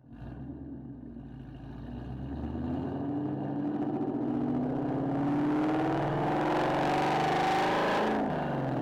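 Ford Mustang engine with aftermarket headers accelerating, its pitch and loudness rising steadily for several seconds, then dropping sharply at a gear change near the end.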